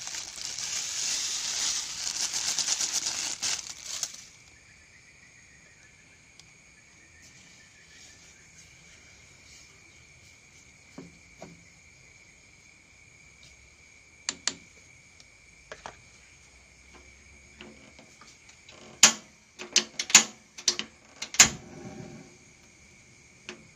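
Granulated sugar pouring in a hissing stream onto blended duckweed slurry in a steel pot for about four seconds. Then a faint steady high whine, a few scattered clicks of a spoon stirring the pot, and near the end a quick run of sharp, louder clicks and knocks.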